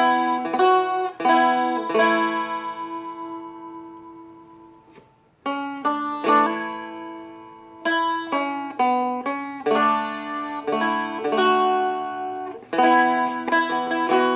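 Seagull Merlin M4, a four-string fretted dulcimer-style instrument, picked slowly note by note over ringing drone strings. About two seconds in a note is left to ring and fades almost to silence, then the picking starts again a little past five seconds.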